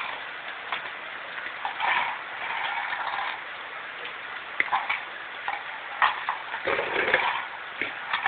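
Scattered small clicks and knocks of a baby handling toys on a hard floor, with a few short rustling noises in between.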